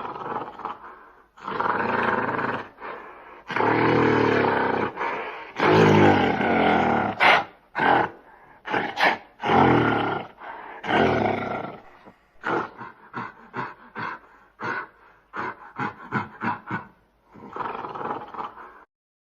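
Gorilla roaring: several long, loud roars in the first half, then a run of short, quick calls and one more roar near the end.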